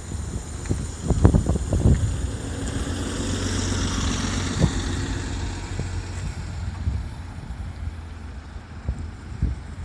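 A 2017 New Flyer Xcelsior XD35 diesel transit bus drives past and away, with a steady engine drone and a hiss that swells as it passes, then grows fainter as it pulls off. There are a few low thumps about a second in.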